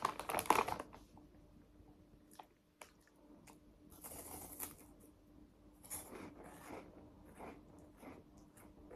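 Foil snack bag crinkling as a hand reaches in, then faint crunching of cheese puffs being bitten and chewed in short bursts.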